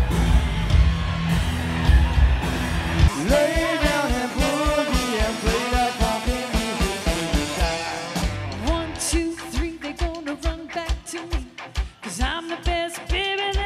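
Live band playing an upbeat pop-rock song with a woman singing lead over keyboards and drums. About three seconds in the sound changes abruptly from a muddy, bass-heavy room sound to a clearer mix with a steady beat.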